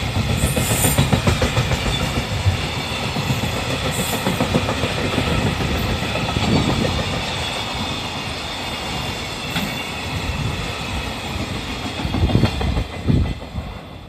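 Wheels of a JR Freight container train's flatcars clattering over the rail joints as the wagons pass close by, with a steady rumble. A few heavier thumps come as the last wagons go by near the end, then the sound falls away as the train moves off.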